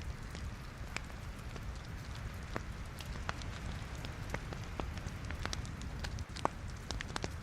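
Wood logs burning in a fireplace, crackling with irregular sharp pops over a steady low rumble of the flames; one louder pop comes about six and a half seconds in.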